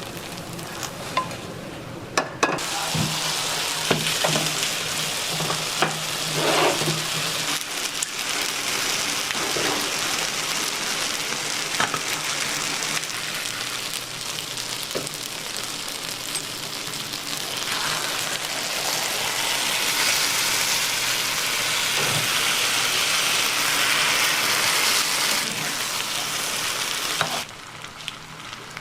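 Food sizzling as it fries in a hot pan while being stirred, with scattered clinks of a utensil against the pan. The sizzle swells about two and a half seconds in and drops away shortly before the end.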